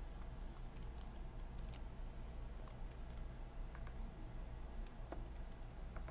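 Faint, irregular clicking from a laptop being operated, over a low steady hum.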